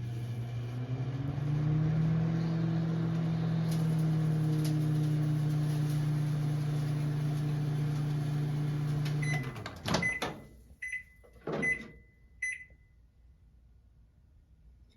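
Home microwave oven running a 10-second heating cycle, with its magnetron and fan making a steady hum that rises slightly in pitch over the first two seconds. The hum stops after about nine and a half seconds, followed by a click and a few short high beeps that signal the end of the cycle.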